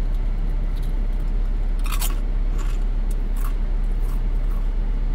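Someone biting and chewing crunchy chips: a few sharp crunches, the loudest about two seconds in, with smaller ones after it. Under them runs a steady low rumble in the car cabin.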